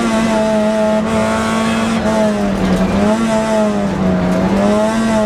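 Toyota Yaris rally car's engine heard from inside the cabin under hard driving, loud and steady, its revs rising and dipping a few times.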